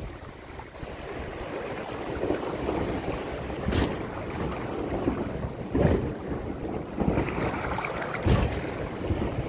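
Sailboat under way in choppy water: a steady rush of water along the hull and wind on the microphone, with three short louder swishes about four, six and eight seconds in.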